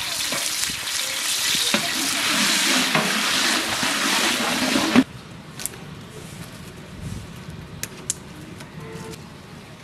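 Diced meat sizzling in hot oil in a large aluminium pot while a long ladle stirs it. The sizzle cuts off suddenly about halfway through, leaving a much quieter stretch with a few light clicks.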